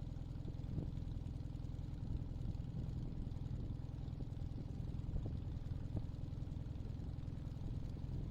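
Hummel engine of a Team Mini-Max 1100R ultralight idling steadily on the ground: a low, even drone.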